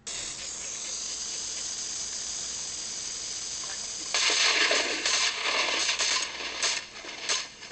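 Steady hiss, then from about four seconds in a run of sharp cracks: shotguns firing at blue-winged teal, several shots in quick succession with clicks among them.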